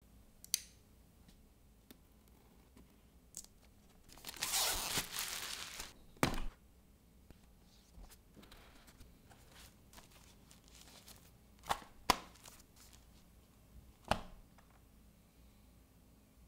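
Cardboard packaging of a DJI RSC 2 gimbal box being unboxed: about four seconds in, a tearing, scraping stretch of about two seconds as the seal or cardboard is torn, then a sharp knock. After that come scattered single taps and clicks as the lid, the foam and the cables are handled.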